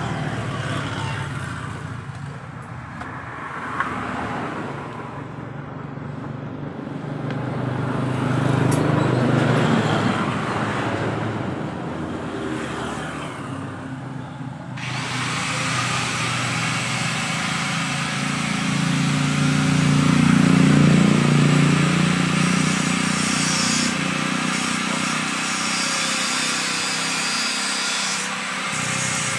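Road traffic: engines of passing vehicles rising and fading, swelling loudest twice, once around a third of the way in and again around two thirds of the way in.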